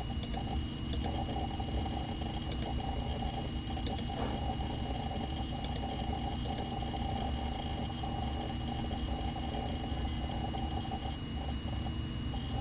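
Mac Pro tower running: a steady fan whir with a constant high whine, and a few faint, irregular clicks of the hard drive seeking as programs open.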